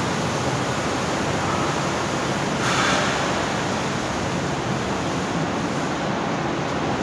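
Steady industrial noise of a leather factory's machinery and ventilation running, with a short hiss about three seconds in.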